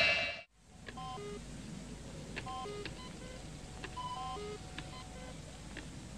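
Electronic computer bleeps: short beeps at several different pitches, played as a repeating sequence of a few notes about every one and a half seconds, with faint clicks in between.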